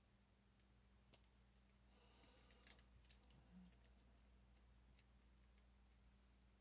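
Near silence: a low steady hum with a few faint clicks and a soft rustle of plastic model-kit parts being handled and fitted together.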